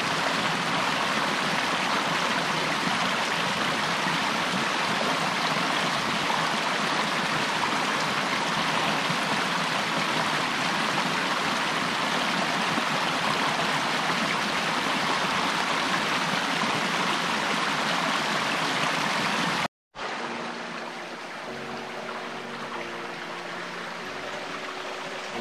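Small rocky creek rushing and tumbling over stones in a steady, even rush. About twenty seconds in it cuts off abruptly and gentle background music with held notes takes over, with a fainter water rush beneath.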